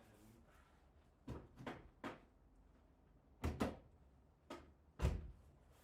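A series of short knocks and clunks, about seven, spread unevenly over a few seconds, the loudest two about three and a half and five seconds in: objects being handled and set down.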